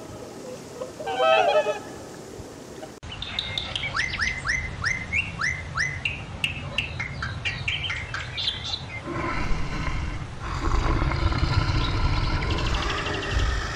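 A short honk about a second in. From about three seconds in, a Bali myna calls in a quick run of sharp chirps, each falling in pitch, about three a second. From about nine seconds in, a louder, rougher sound with a low rumble takes over.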